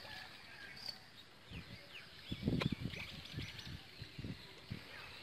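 Faint outdoor ambience with small birds giving short chirps, several of them in the middle. A few dull low thumps come about two and a half seconds in.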